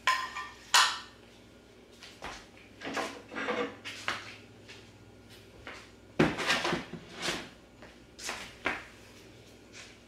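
Clinks, knocks and scrapes of a metal stain can and other items being handled and set down, coming in irregular bursts, with two sharp clinks in the first second.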